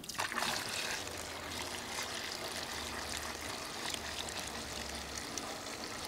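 Petrol pouring steadily from a plastic jerrycan through a plastic funnel into a portable generator's fuel tank.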